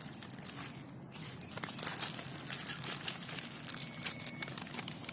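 Irregular crinkling and crackling of a plastic bag handled by hand while fishing bait is mixed in it.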